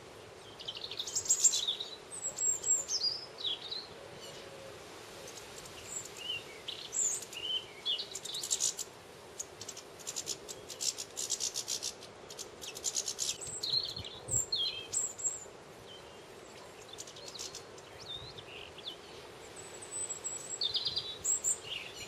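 Small finches twittering and calling: quick chirps, short slurred notes and fast rattling trills in repeated bursts, busiest about halfway through.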